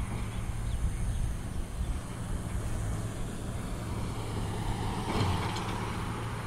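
Steady low rumble of motor vehicle engines, swelling briefly about five seconds in.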